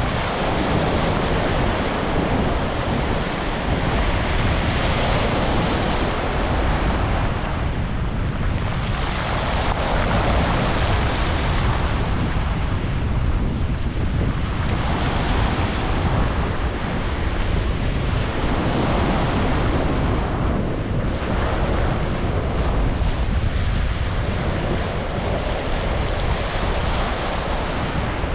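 Ocean waves breaking and washing onto a beach: a continuous rush of surf that swells and eases every few seconds over a deep, steady rumble.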